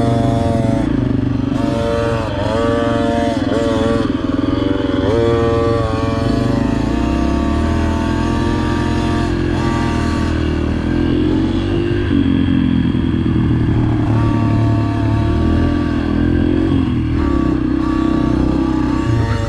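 Dirt bike engine revving up and dropping back again and again as a rider goes around a motocross track, with a steadier engine sound running underneath.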